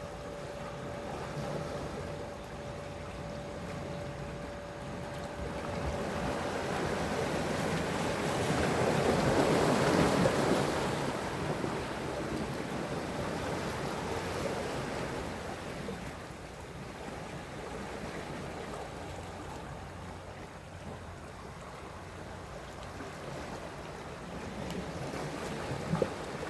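Sea waves washing ashore, one swell building to its loudest about ten seconds in and then drawing back.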